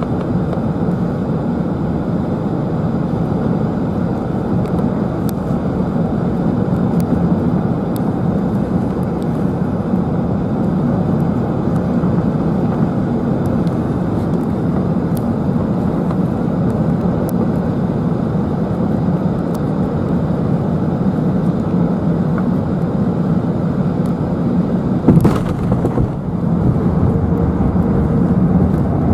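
Cabin noise of an Airbus A380-841 on final approach, a steady rush of airflow and the hum of its four Rolls-Royce Trent 900 engines. About 25 s in a sharp thud marks the touchdown, and a somewhat louder rumble follows as the plane rolls down the runway with its spoilers deployed.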